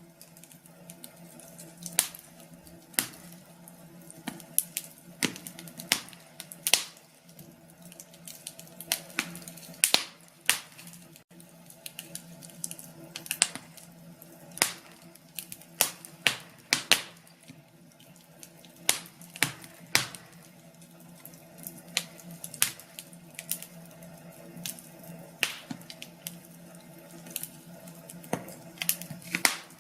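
Wood fire in a fireplace crackling, with sharp irregular pops about every second over a steady low hum.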